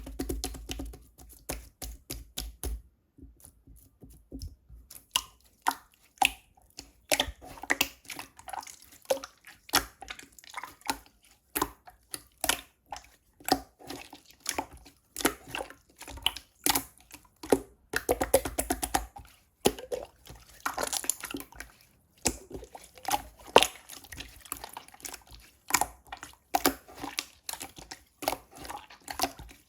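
Slime being squished and pressed by hand, giving a dense, irregular run of wet clicks and pops.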